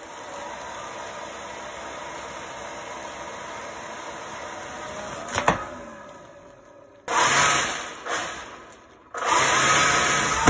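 3D-printed centrifugal compressor wheel on a 540 brushed electric motor, running at 3 V with a steady whine as it blows up a plastic bag. About five seconds in there is a click and the sound dies away. Near the end come two short, louder rushes of air and whine as it runs on 7.4 V.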